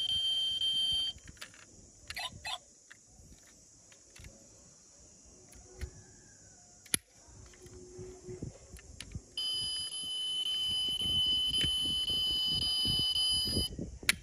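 A steady, high-pitched electronic buzzer tone sounds briefly and cuts off about a second in. After a stretch of scattered clicks and light handling knocks, with one sharp click in the middle, the same tone sounds again for about four seconds and stops shortly before the end.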